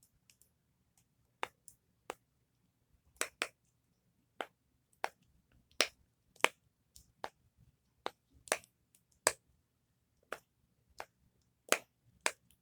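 Simple dimple fidget toy being pressed over and over, its little silicone bubbles popping with sharp clicks at an uneven pace, some in quick pairs.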